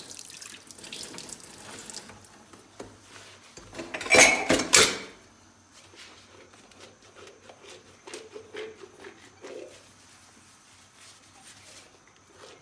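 Dishes being washed by hand at a kitchen sink: running tap water at first, a loud clatter and splash of dishes about four seconds in, then quieter handling with light clinks and the rubbing of a sponge on the dishes.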